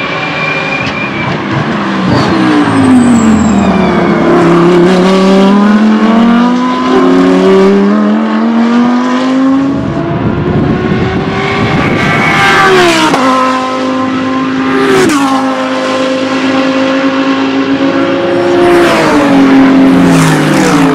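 Lamborghini Huracán GT3 EVO2 race cars' naturally aspirated V10 engines running hard past the track, the pitch dropping in quick downshift steps under braking several times and rising again as they accelerate away.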